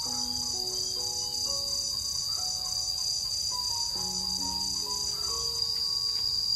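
A steady, high-pitched insect chorus with a faint pulse about twice a second, over soft background music of slow, sustained notes.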